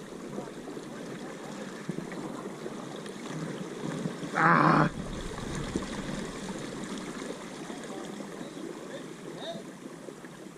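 Steady rushing background noise, with one short, loud shout about four and a half seconds in.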